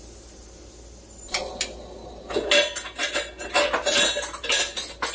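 Kitchen cookware and metal utensils clattering: a run of irregular clanks and clinks starting about a second in, busiest in the middle, over a faint steady hiss.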